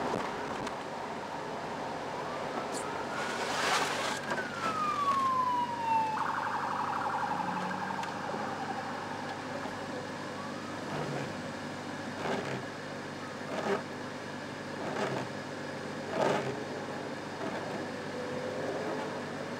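Police car siren heard muffled inside a car cabin: a wail that rises and falls a few seconds in, then a fast warble for about two seconds. Underneath are the steady rush of the defroster fan and road noise in the rain, and windshield wiper strokes knocking about every second and a half.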